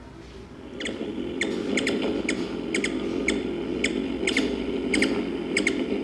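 Recorded calls of a ruby-throated hummingbird played through a small handheld speaker held to a microphone. They come as a string of short, high chips, some in quick pairs, irregularly one or two a second. Under them is a steady low hiss from the playback that starts about a second in.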